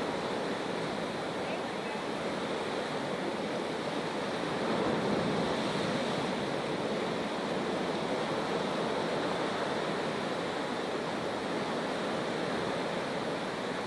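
Steady rushing and hissing of churning, foaming sea water with wind, swelling slightly about five seconds in.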